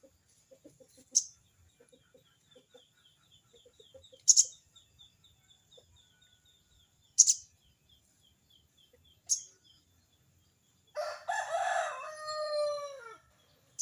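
Sogon bird giving four short, sharp, high call notes, one every two to three seconds, over a faint, fast, even ticking series. Near the end a rooster crows loudly for about two seconds, its call falling in pitch.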